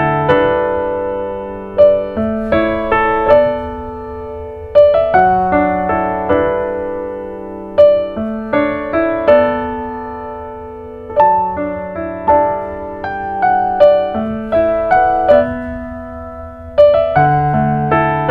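Background piano music: a slow, gentle melody of notes and chords, each struck and left to fade.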